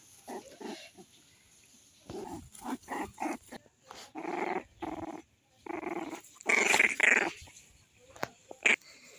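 Puppies growling during rough play, in a series of short bursts, the loudest about seven seconds in.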